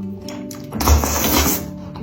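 Background music with steady tones, and about a second in a loud, noisy burst of eating sound from the seblak mukbang that lasts nearly a second.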